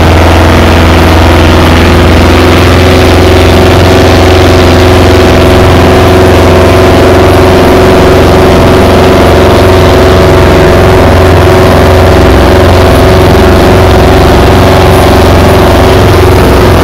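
Fishing boat's inboard engine running steadily under way, heard very loud and close from on deck, with a constant hum and a rushing hiss over it.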